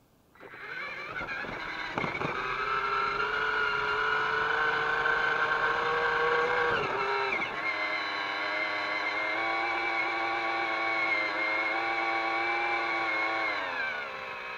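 Small electric motor and gearing of a radio-controlled toy Linde forklift running with a steady whine. The pitch dips about seven seconds in, settles slightly lower, then falls away as the motor winds down near the end.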